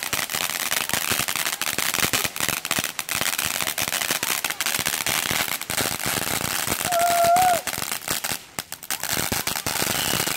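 Ground fountain firework spraying sparks with a dense, rapid crackle that thins briefly about eight and a half seconds in. A short high tone sounds about seven seconds in.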